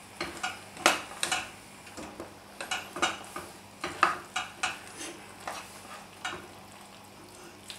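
Spoon stirring cooked macaroni into thick cheese sauce in a stainless steel pot, with irregular scrapes and knocks against the pot's side, several a second.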